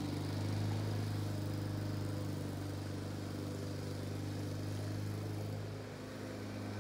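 Steady low drone of a running machine, such as an engine or motor, holding an even pitch throughout, dipping slightly in level about six seconds in.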